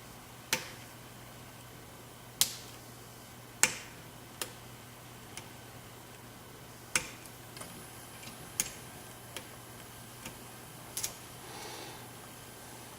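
Lock picking on a high-security euro profile pin-tumbler cylinder with spool driver pins: sharp metallic clicks at irregular intervals as the pick and tension tool work the pins, about six loud clicks with fainter ticks between.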